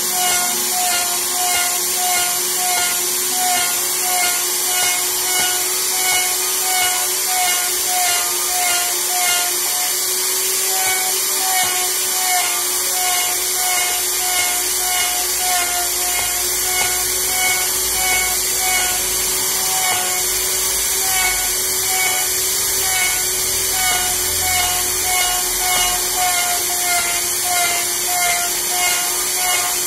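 Handheld electric wood router running steadily as it cuts into a wooden slab, a continuous high-pitched motor whine and cutting hiss. Music with a steady beat plays over it.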